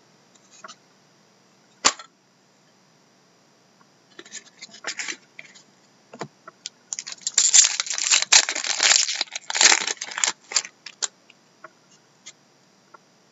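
Trading card pack wrapper crinkling loudly as it is torn open, with scattered sharp clicks and ticks of cards being handled; one sharp click comes about two seconds in.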